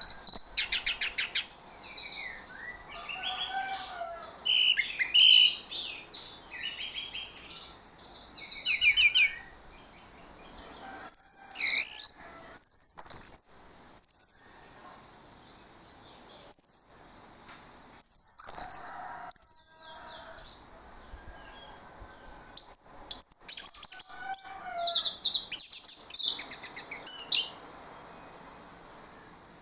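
Orange-headed thrush singing a loud, open full song of varied phrases: high whistled glides and rapid chattering trills, some of them mimicked calls of other birds, with short pauses between phrases.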